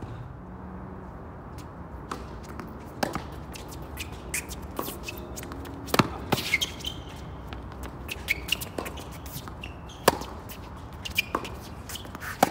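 Tennis rally on a hard court: racket strikes on the ball every few seconds, the loudest about six seconds in, with ball bounces and footsteps in between, over a steady low hum.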